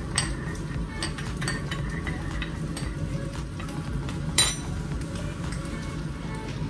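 Metal spoon stirring and clinking against a small glass bowl of soy sauce mixture, a few sharp clinks with the loudest about four seconds in. Under it there is the steady sizzle of fish frying in a pan on the stove.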